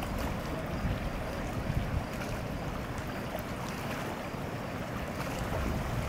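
Steady rushing of river rapids, with wind buffeting the microphone in an uneven low rumble.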